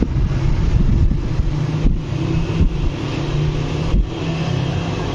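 A steady low mechanical hum, with a few soft knocks about two, two and a half and four seconds in as hands press and shape pieces of rolled paratha dough on a silicone baking mat.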